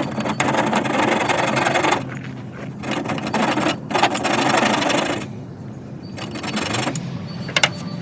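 Bow drill spindle grinding against a spalted white oak fireboard, in a few rasping stretches broken by short pauses, with a couple of sharp clicks near the end.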